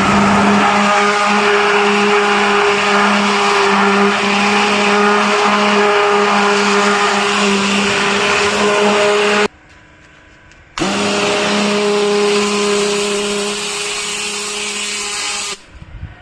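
Three-phase 7.5 HP pressure washer spraying a high-pressure water jet: a loud hiss of spray over the pump's steady hum. The spray stops for about a second past the middle and starts again, then cuts off shortly before the end.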